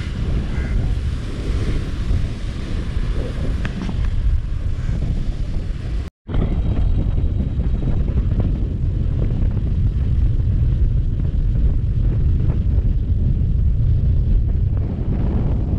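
Wind blowing hard on the microphone over sea waves crashing on rocks. After a sudden break about six seconds in, a steadier, lower wind rush on the microphone takes over.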